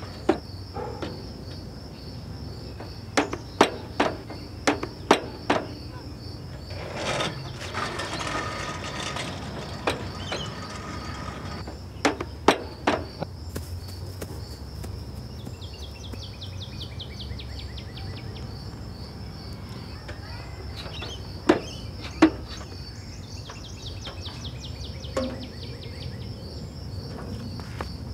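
Steady high insect chirping, cricket-like, pulsing evenly throughout. It is broken by sharp knocks: a quick run of them a few seconds in, two more near the middle and two later on. A short rushing swell comes about a quarter of the way in.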